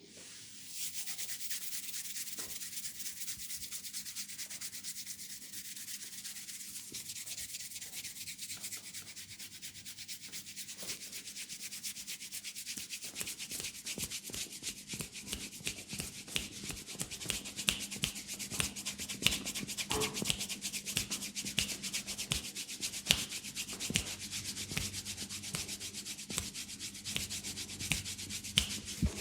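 Fingertips rubbing and scratching through hair on a scalp close to the microphone: a continuous dry, high hiss full of fine crackles, growing louder and more crackly about halfway through.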